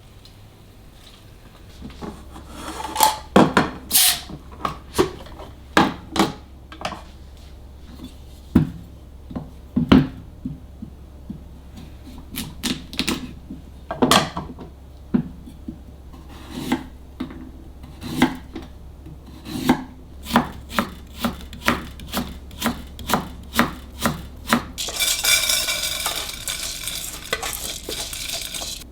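Kitchenware being handled on a counter: a long series of sharp knocks and clinks at an uneven pace. Near the end, tap water starts running.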